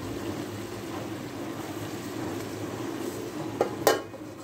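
Steady low rushing noise of the pot of potatoes and cauliflower cooking on the stove. Near the end, a steel lid clanks as it is set onto the pot.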